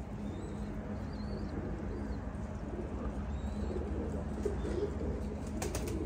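Domestic pigeons cooing steadily from a rooftop loft, over a steady low background hum, with a few faint high chirps in the first couple of seconds.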